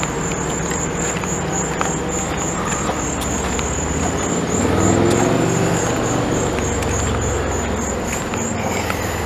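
Crickets chirping steadily in an even pulsing rhythm, with a car passing on the road, its rumble swelling about halfway through and fading near the end.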